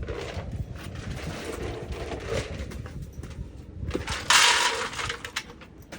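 Dry cat food being poured out, with a rattling pour of about a second a little past the middle, amid faint rustling and clicks.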